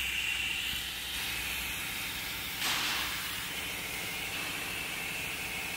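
Steady air hiss in a CNC plasma-cutting shop, with a short louder burst of noise about two and a half seconds in as the thin cut sheet-steel parts are handled.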